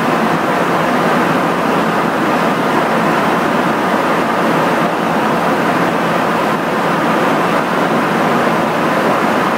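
Steady rush of airflow and jet engine noise inside a KC-135 Stratotanker in flight, with a faint steady hum under it.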